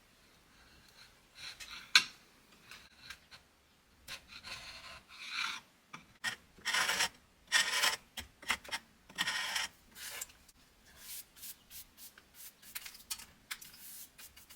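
Irregular hand strokes of a file or sandpaper rubbing on the chair's wood, coming faster and louder in the second half, with one sharp tap about two seconds in.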